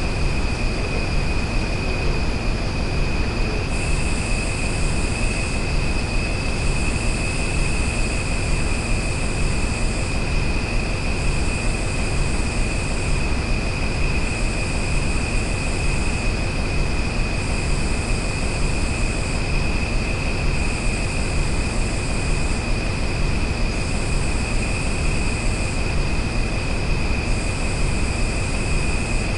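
Nature ambience: a steady rushing noise under a continuous high-pitched drone, with a still higher buzz that switches on and off about every three seconds from a few seconds in.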